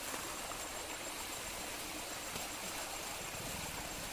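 Shallow stream water flowing steadily, a constant rushing wash.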